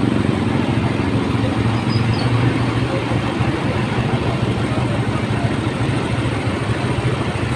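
Steady rumble of vehicle engines and road traffic, with no sudden sounds.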